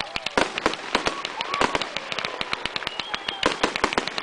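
Consumer aerial fireworks going off close by: a dense run of sharp bangs and crackling pops, several a second, thickest near the end.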